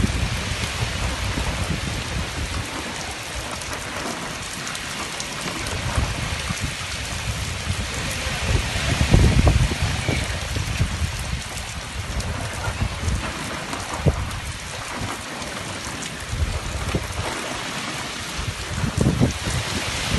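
Heavy rain pouring steadily, with gusts of wind rumbling on the microphone now and then, strongest about nine seconds in and again near the end.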